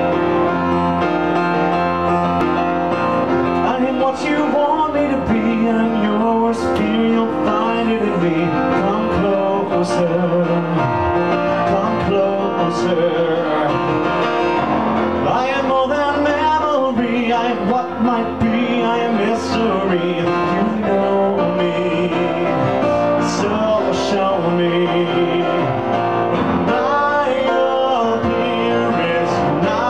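Grand piano played with a driving accompaniment while a man sings a show tune into a microphone, his voice coming in about four seconds in.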